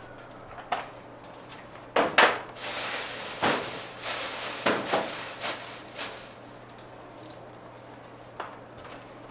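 Objects being handled and set down while cleaning: a cluster of knocks and clatters over about four seconds, with a rushing, rustling noise between them, starting about two seconds in.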